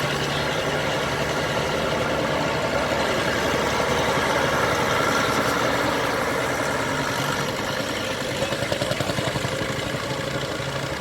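Tractor engine running steadily, with a rhythmic throbbing about two-thirds of the way through.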